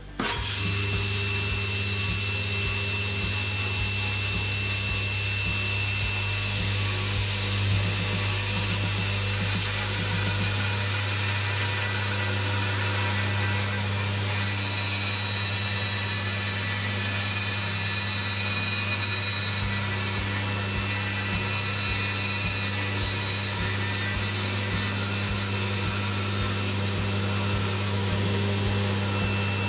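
Table saw running steadily, its blade shaving a wooden blank into a round dowel as a cordless drill turns the blank slowly in a lathe jig.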